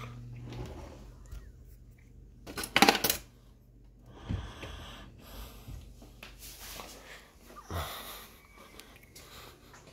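Metal cutlery clinking and rattling in a kitchen drawer as it is rummaged through, loudest in a short burst about three seconds in, followed by scattered knocks and handling noise.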